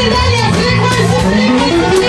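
Loud church praise music with guitar and a steady beat.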